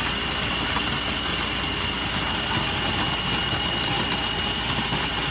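Food processor motor running steadily with a high, even whine as its blade cuts cold butter into a flour, sugar and ground-pecan mix. The motor is still working a little hard under the load of the butter.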